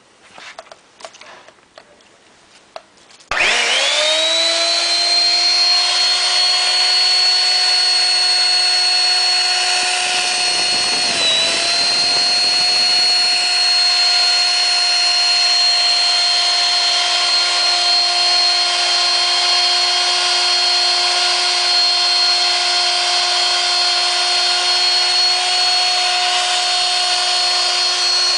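RIDGID HC-450 pipe hole cutter's electric motor switched on a few seconds in, spinning up quickly to a steady high whine and running on. About ten seconds in its pitch sags briefly while a low rumble comes in for a few seconds.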